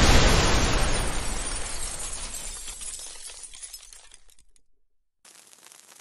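Bomb explosion sound effect dying away: rumble and crackling, shattering debris fading out over about four seconds, then a brief silence.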